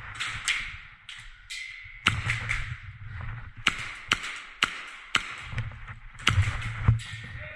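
Airsoft guns firing single shots as a string of sharp cracks at irregular spacing, some half a second apart. Under them is low rustling and thumping from movement and gear handling.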